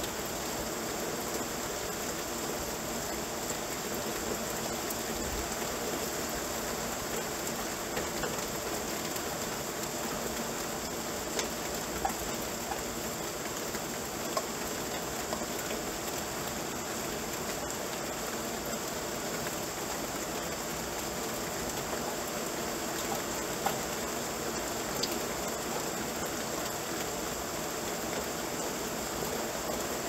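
Steady rain falling, an even hiss with a few sharper drop hits now and then.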